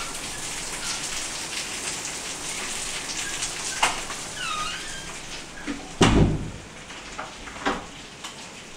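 Steady rain-like hiss broken by a few knocks, the loudest a dull thump about six seconds in. About four and a half seconds in comes a faint, short, high call: a kitten mewing.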